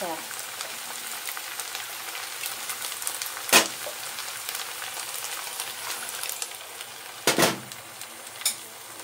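Stuffed green peppers with fish paste sizzling in sauce in a nonstick wok, a steady hiss. A sharp knock sounds about three and a half seconds in, and a louder one near seven seconds.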